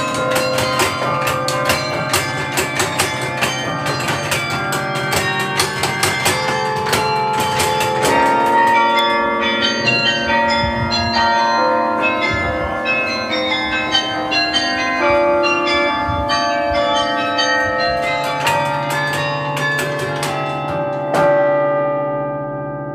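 Carillon bells playing a fast melody, many struck notes ringing over one another. A last chord is struck near the end and rings out, fading.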